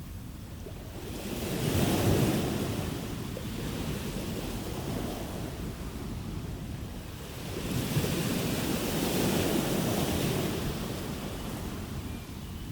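Ocean waves breaking on the shore, two swells of surf rising and washing back, the first about two seconds in and a longer one a few seconds later.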